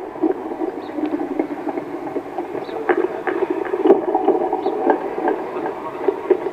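Steady murmur of a large crowd of many voices blending together, with a few faint ticks.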